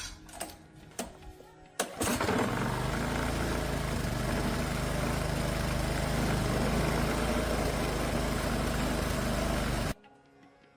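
Husqvarna 235 chainsaw's two-stroke engine running steadily for about eight seconds, coming in suddenly about two seconds in and cutting off abruptly near the end. Light clicks and music come before it.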